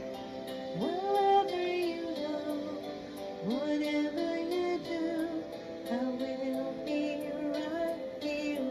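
Music with a sung melody over a light, steady beat of about two ticks a second, starting abruptly.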